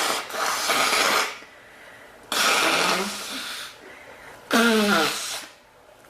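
A woman coughing: three harsh coughs about two seconds apart, each about a second long, the second and third with a voiced tail.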